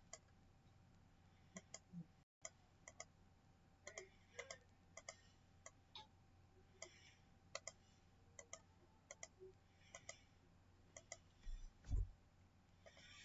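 Faint computer mouse clicks, irregular and sometimes several in quick succession, with a soft low thump near the end.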